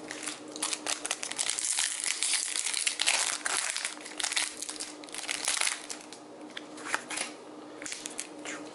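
A foil Pokémon TCG Fates Collide booster pack wrapper being torn open and crinkled, a dense crackling over the first six seconds or so, then sparser rustling.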